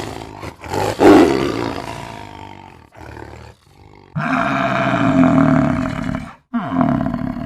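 Lion roaring in several separate calls with abrupt breaks between them; the loudest and longest call comes past the middle.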